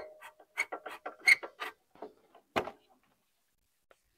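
A quick run of small metallic clicks and taps from a hand tool undoing the screw on a motorcycle's side panel, then one sharper knock about two and a half seconds in.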